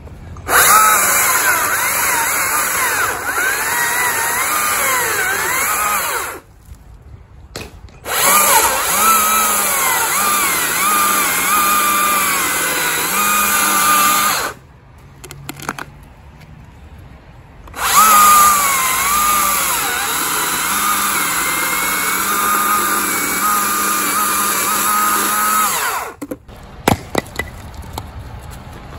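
Stihl two-stroke chainsaw running at high revs and cutting through logs, its pitch rising and falling as it bites, in three stretches of several seconds with short quiet breaks between. Near the end, a few sharp knocks.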